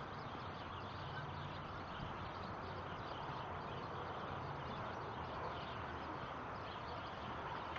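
Steady outdoor background noise, an even haze with no distinct events.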